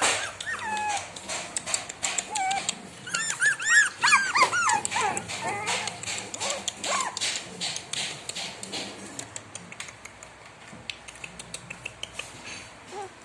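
Young puppies whimpering and squeaking in short, high, rising-and-falling whines. Several overlap about three to five seconds in, then they become fewer and fainter. A quick run of small clicks sounds underneath, thinning out later.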